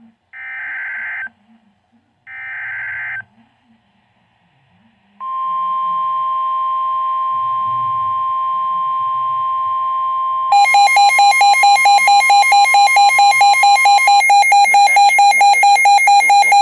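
Emergency Alert System signalling: three short warbling bursts of SAME digital data, then a steady alert tone from about five seconds in. About halfway through, a louder, harsher tone pulsing about four times a second takes over.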